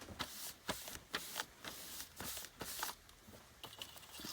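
Paper and cardstock being handled: rustling with a string of short crackles and taps.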